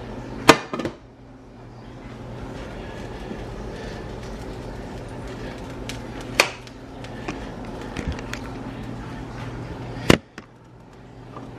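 A frying pan set down on a glass-top electric stove with a loud clatter, followed a few seconds later by more sharp knocks, over a steady low hum.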